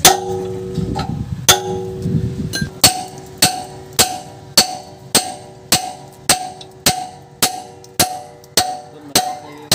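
Hammer blows on a steel tool held against a truck's drum-brake backing plate, each strike ringing with a metallic clang. A few spaced blows give way to a steady rhythm of just under two strikes a second.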